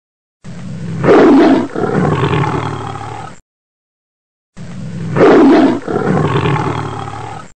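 Tiger roaring: one roar of about three seconds, repeated after a second's silence as the same recording played again, each loudest about a second in.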